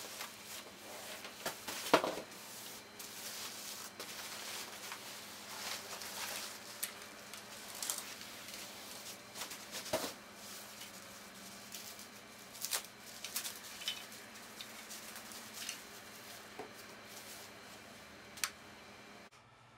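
Packing material being stripped off a rifle: crinkling and rustling of foil-faced bubble insulation, cardboard and plastic wrap, with scattered sharp knocks and taps. The loudest knock comes about two seconds in.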